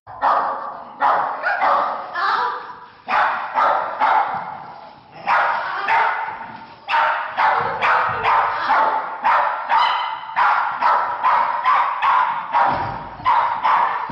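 A dog barking over and over, two or three barks a second with a few short pauses, each bark echoing in a large indoor hall.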